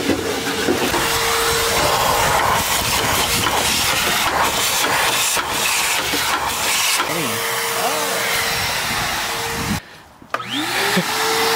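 Wet/dry shop vacuum running with a steady whine as its hose sucks dirt off a stripped car floor pan, with a few sharp clicks. Near the end the sound drops out briefly, then the vacuum motor spins up again with a rising whine.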